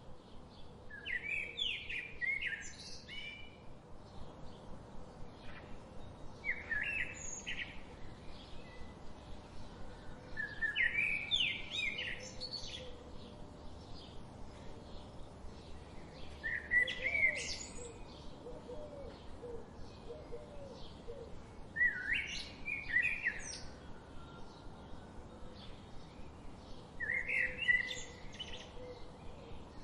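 Songbirds singing: one bird repeats a short, warbled song phrase about every five seconds, with many fainter chirps of other birds behind it over a soft steady background hiss.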